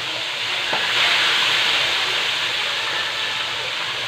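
Fish frying in hot oil in a pan: a steady sizzle that grows louder about a second in.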